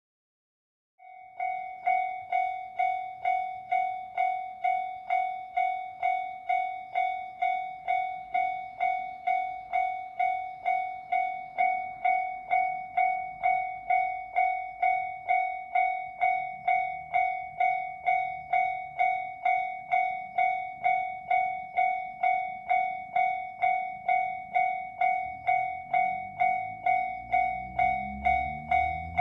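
Japanese level-crossing electronic warning bell ringing, a pitched ding repeated about twice a second, starting about a second in. Near the end a low rumble of the approaching train grows under it.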